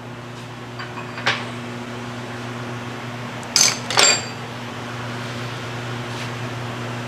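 Steel tools and workpieces handled on a metal bench, with a light click and then two sharp, ringing metal clinks about three and a half and four seconds in, over a steady machine hum.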